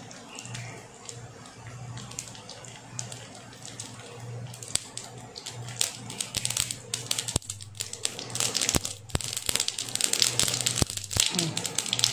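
Mustard seeds and urad dal sizzling and popping in hot sesame oil in a kadai: a soft sizzle at first, then sharp pops coming thick and fast from about four and a half seconds in as the mustard seeds splutter, the sign that the tempering is ready.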